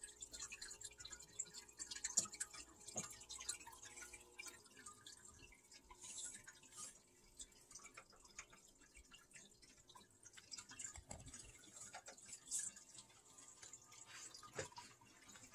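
Near silence with faint, irregular drips and small ticks of water over a faint steady hum.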